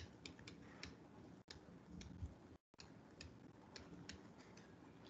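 Near silence with faint, irregular ticks of a stylus tapping on a pen tablet as handwriting is written.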